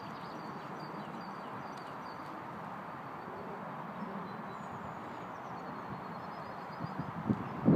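A horse's hoofbeats thudding on the arena surface near the end, getting louder as it comes closer. Before them there is a steady outdoor background hiss with faint bird chirps.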